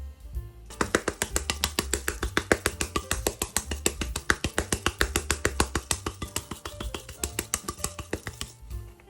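Background music with a low bass line. About a second in, a fast, even run of sharp taps or clicks starts, about seven a second, and stops shortly before the end.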